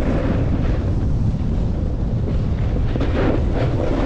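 Wind rushing over an action camera's microphone during a fast descent of a steep ski run: a steady, heavy rumble, with a few sharper scrapes of edges on hard-packed snow about three seconds in.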